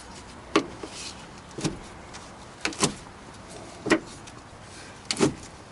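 Wrench tightening a truck battery's hold-down: short sharp metallic clicks, five of them about a second apart, one per stroke.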